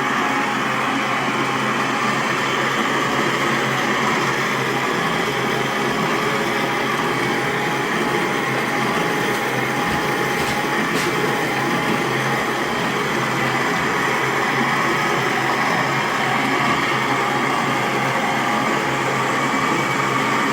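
Country Living grain mill driven by a 12-volt DC inline gearmotor through a V-belt and pulley, running steadily with an even motor hum and mechanical whir.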